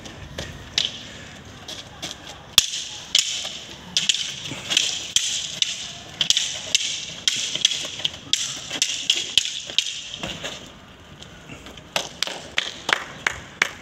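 Wooden fighting sticks clacking against each other in repeated sharp knocks, the loudest about two and a half seconds in, with a quicker run of strikes near the end.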